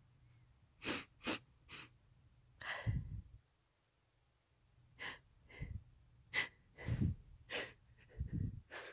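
A woman sniffling and breathing in short, sharp bursts close to a phone's microphone, about ten in all with pauses between. Some of the breaths hit the microphone with a low thump.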